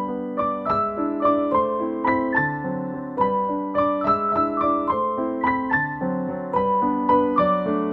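Background piano music: a melody of quick single notes over lower chords.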